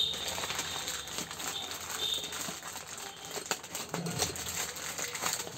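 A small plastic bag crinkling and rustling as it is handled, in irregular crackles.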